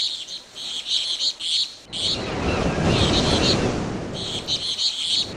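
Birds chirping in short repeated bursts. About two seconds in, a broad, steady rushing noise joins them, as from nature ambience.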